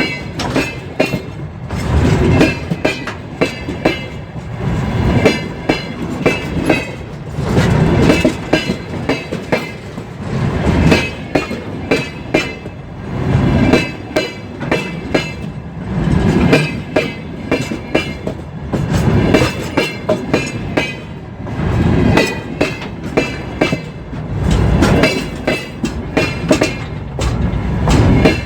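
Empty freight wagons rolling past over a bridge, their wheels clattering loudly over the rail joints. The clatter comes in heavy groups about every three seconds as each pair of wagon bogies crosses the joints.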